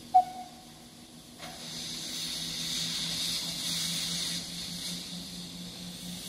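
Distant steam locomotive letting off steam: a hiss swells up about a second and a half in and carries on over a low steady hum. A single brief, sharp, pitched pip just after the start is the loudest sound.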